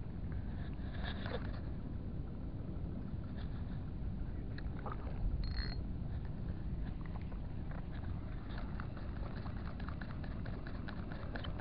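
Luke Herod 1000 spinning reel: a short sharp sound about five and a half seconds in as the lure is cast and the bail is closed, then quick light ticking as the line is cranked in over the last few seconds. Under it runs a steady low rumble.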